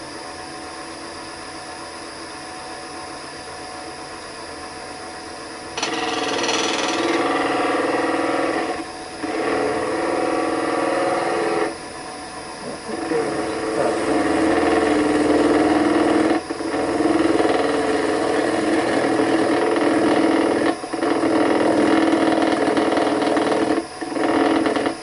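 Wood lathe running at about 1100 RPM with a steady hum, then from about six seconds in a lathe knife cutting into the spinning wood: a much louder cutting noise in several stretches of a few seconds each, broken by brief pauses as the tool comes off the work.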